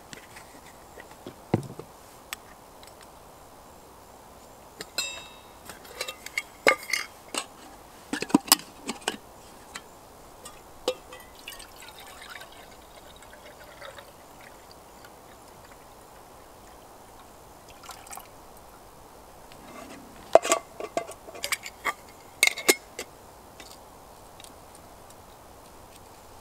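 Stainless-steel camping cookware and stove parts clinking and clattering as they are handled and set down, in two bursts of sharp knocks, a few seconds in and again near the end, with a brief metallic ring at the start of the first.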